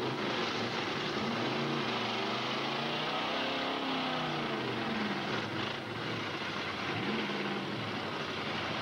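Demolition derby car engines revving hard, their pitch rising and falling again and again, over a dense wash of noise.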